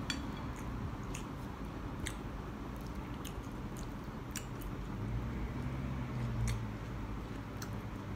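A person eating: quiet chewing, with scattered light clicks of chopsticks against the dishes.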